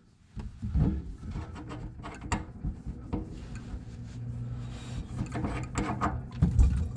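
Irregular clicks, knocks and scraping of a wrench and metal plumbing fittings being handled in the cramped cabinet under a kitchen sink, as the old faucet's supply line is worked loose.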